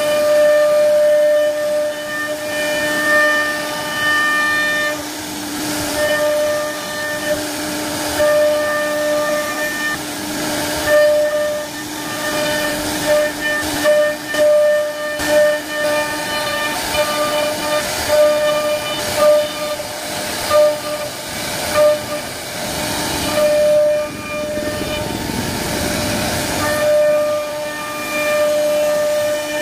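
CNC router spindle whining steadily as its bit carves a relief pattern into a wooden board, with a hiss of cutting noise. The sound swells and eases again and again as the bit moves through the wood.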